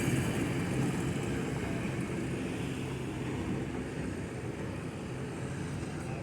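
A motor vehicle's engine running at low revs with a steady hum, gradually fading.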